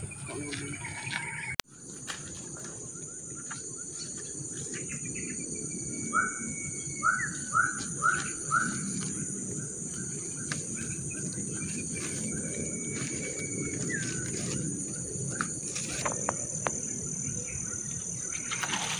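Steady high-pitched insect drone with a bird calling: a quick run of five rising chirps about six to nine seconds in, and a few thin held whistles, one ending in a falling note.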